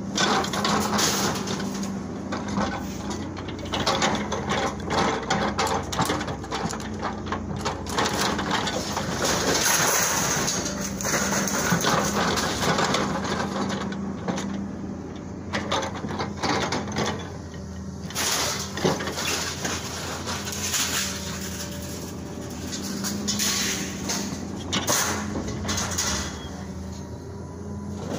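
John Deere excavator running steadily while it lifts scrap metal out of a pickup truck bed, with irregular clanks, scrapes and crashes of sheet metal throughout.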